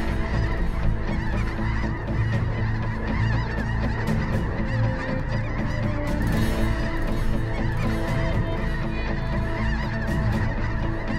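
A large flock of snow geese calling overhead: a dense, continuous clamour of many overlapping honks.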